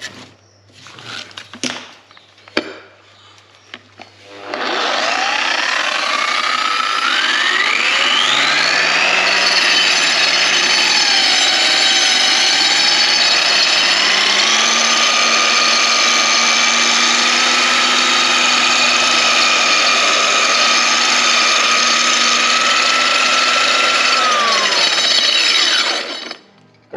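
Parkside PWBS 180 B2 wall and floor sander's motor switched on and spinning up with a rising whine. Its speed steps up about halfway through, holds steady, then winds down with a falling pitch when switched off near the end. A few handling knocks come before it starts.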